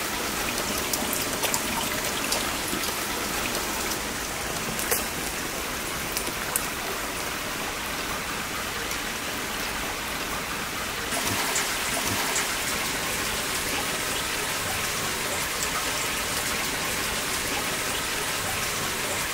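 Steady rain falling, an even hiss with scattered faint drop ticks; its tone shifts slightly about eleven seconds in.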